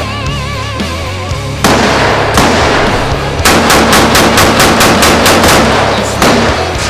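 Gunshots over rock music: two sharp single shots, then a fast string of about a dozen shots in two seconds, then one more.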